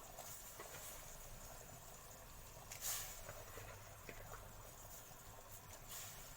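Tomato sauce simmering in a pan, a faint bubbling and crackling with scattered small ticks, and one brief louder sound about three seconds in.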